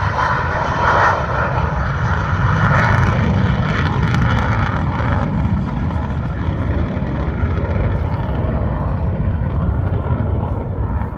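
MiG-17F's afterburning turbojet (Klimov VK-1F) running at full power with the afterburner lit as the jet takes off. It is a loud, steady noise whose high end fades over the second half as the jet pulls away.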